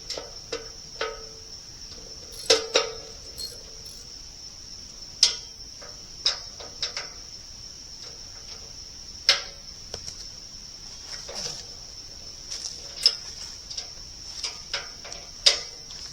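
A steady, high insect chorus, with scattered sharp metallic clinks and knocks from a wrench and bolts at a sawmill track's bolted joint being loosened.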